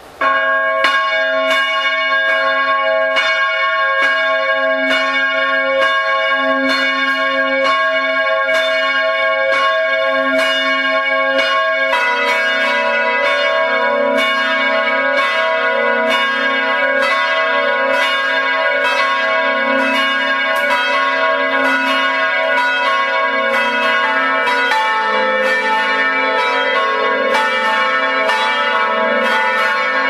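Full peal of Trier Cathedral's ten bronze swinging bells, cast in 1951 by Otto of Hemelingen, heard close up in the bell chamber as they are rung up. The bells start striking suddenly and keep up a steady run of overlapping strokes. Deeper bells join about twelve seconds in and again around twenty-five seconds in.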